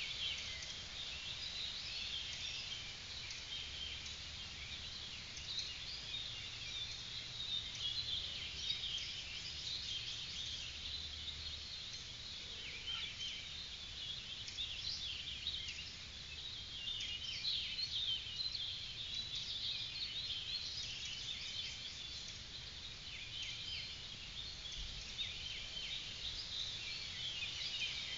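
Dawn chorus of many songbirds singing at once: a dense, continuous mix of high chirps and trills, over a faint low hum.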